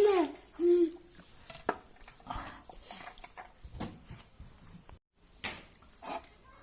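Two short voiced calls, each rising then falling in pitch, at the start and just under a second in. They are followed by faint scattered clicks and scrapes.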